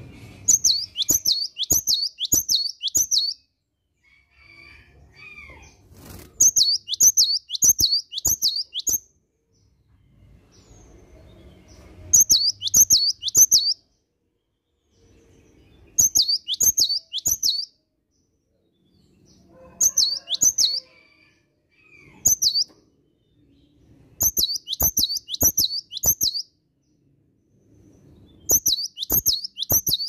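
Cinereous tit singing: repeated bursts of four or five quick, high, ringing notes, each burst a second or two long, with short pauses between them.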